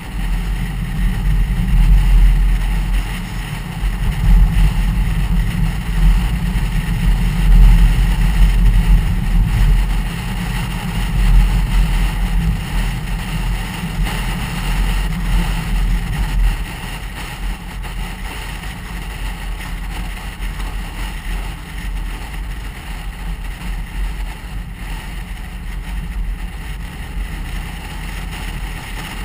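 Road and engine noise of a car driving along a country road: a steady low rumble with tyre and wind hiss. The rumble is louder for the first half and eases off about sixteen seconds in.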